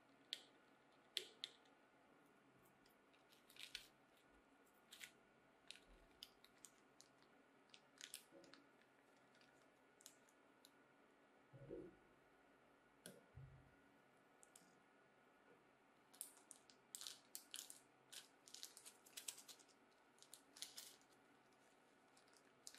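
Faint handling noises of small metal tools and parts: scattered sharp clicks and taps, two soft thumps around the middle, and a quick run of clicks and crinkles near the end as a small plastic bag of screws is handled.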